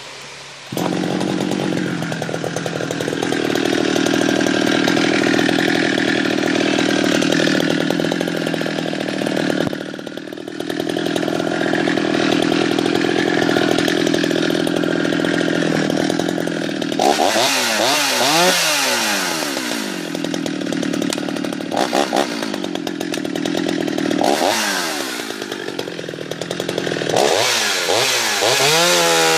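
Jonsered 630 two-stroke chainsaw engine, coming in suddenly about a second in and running at a steady high speed. In the second half its pitch drops and climbs back several times.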